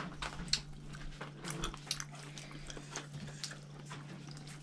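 Eating sounds: irregular small clicks and smacks of chewing and of prawns being peeled by hand, over a steady low hum.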